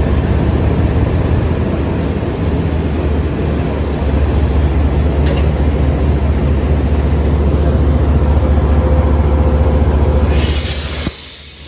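Diesel locomotive engine running with a steady low drone, close by, with a sharp click about five seconds in. About ten seconds in a loud hiss of air comes in, and then the engine sound drops away abruptly.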